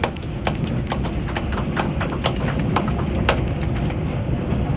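Passenger train coach rolling along the track: a steady low rumble with irregular sharp clicks and knocks, a few each second, from the wheels and the car's running gear.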